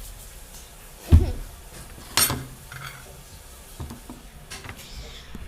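A few knocks and clicks of small objects being handled and set down. The loudest is a dull thump about a second in, followed by a sharp clack a second later and a few lighter clicks.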